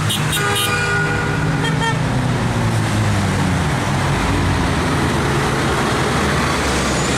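Busy highway traffic passing steadily, with a car horn beeping several short times in the first second.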